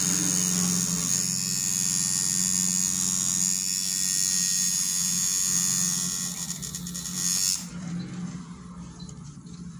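Coil tattoo machine buzzing steadily while it works ink into the skin of a back. It gets quieter in the last few seconds.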